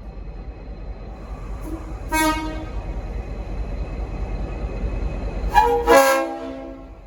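Leslie RS5T five-trumpet air horn on a V/Line N class diesel locomotive sounding chord blasts. There is a short toot and a longer blast about two seconds in, then another short toot and a blast of about a second near the end, the loudest. The locomotive's low engine rumble runs underneath and drops away sharply near the end.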